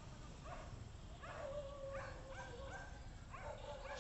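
A dog barking and yelping in a series of short pitched calls, with one longer drawn-out call starting about a second in; faint.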